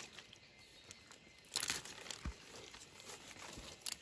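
Rustling and crinkling handling sounds with scattered small clicks, the loudest a brief rustle about one and a half seconds in, and a couple of soft low thumps.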